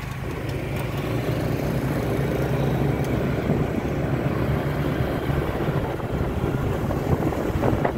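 Small motorbike engine running steadily while riding along a paved road, with wind noise on the microphone.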